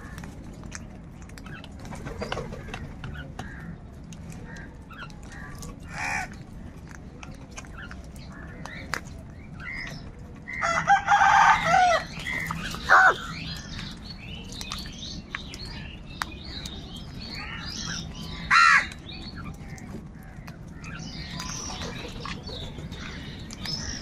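A flock of house crows cawing. There is a loud burst of harsh, overlapping caws a little before halfway, then single loud caws just after and again a few seconds later, with quieter calls and short clicks scattered between.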